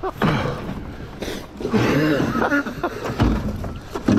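Short voice sounds that were not picked up as words, over rushing river water and handling noise in an aluminum drift boat, with a dull thump about three seconds in.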